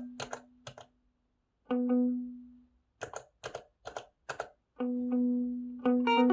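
Electric guitar played through a delay pedal: a held note dies away, then sharp muted-string strums alternate with single ringing notes, with short near-silent gaps between. Busier picked playing starts near the end.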